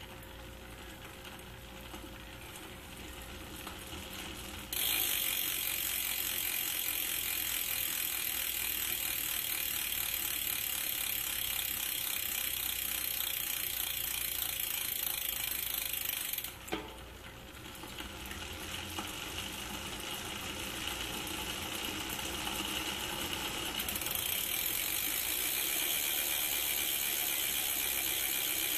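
MOB mountain-bike rear hub freewheeling: the pawls click so fast that they merge into a continuous ratcheting buzz. It is fainter at first, jumps to full loudness about five seconds in, drops away with a click a little past halfway, then builds back up and is loud again near the end.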